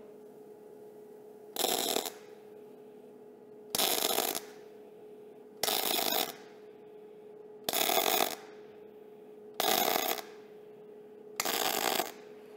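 Six short MIG (gas metal arc) tack welds with 0.035-inch wire, each arc crackling for about half a second, about two seconds apart. They are tacks that hold the tubing in place on the base plate. A steady low hum runs underneath.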